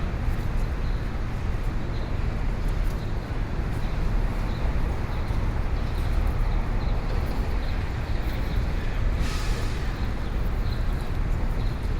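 Busy city street ambience: a steady rumble of passing traffic, with a brief burst of hiss about nine seconds in.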